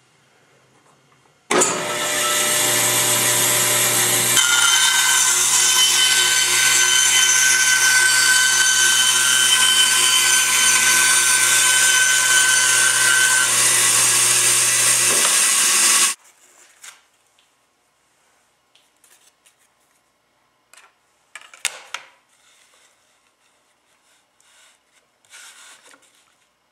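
A power saw running and cutting wood, with a steady motor hum under the cutting noise. It starts suddenly a second and a half in and cuts off abruptly about sixteen seconds in, followed by a few faint light knocks and clicks.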